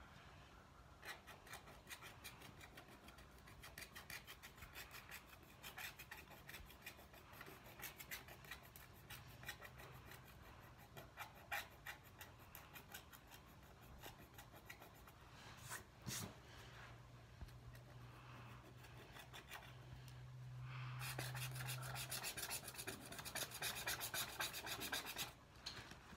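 Wooden stylus scratching the black coating off rainbow scratch-art paper in quick back-and-forth strokes. The strokes thin out around the middle, then turn into a dense, fast scratching for about four seconds near the end before stopping suddenly.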